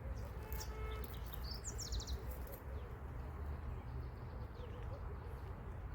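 Wild birds chirping, with a quick run of high repeated chirps about two seconds in, over a steady low rumble of outdoor background noise.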